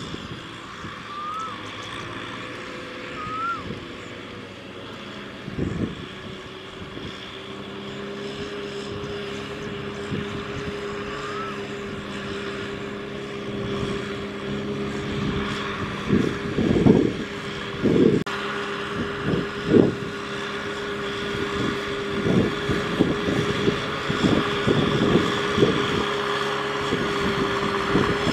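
Farm tractor's diesel engine running steadily under load as it pulls a loaded trailer, growing louder as it comes closer. Irregular low thumps join in during the second half.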